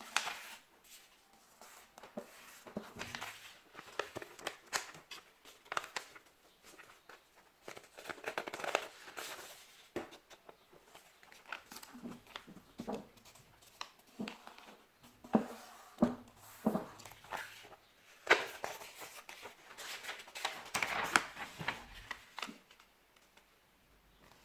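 A sheet of paper being folded and creased by hand: irregular rustles, crackles and short sharp swishes of paper.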